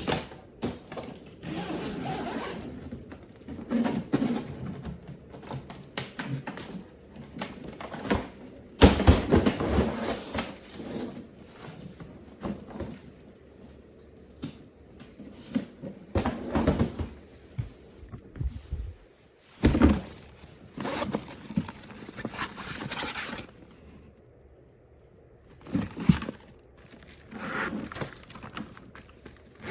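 Irregular handling noises from a hardside carry-on suitcase being worked by hand: knocks, thunks and scraping, with louder bursts at several points.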